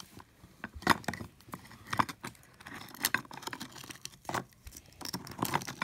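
Hard oyster shells clicking and scraping against each other and against a plate as an oyster is pried open by hand, in a series of irregular sharp clicks.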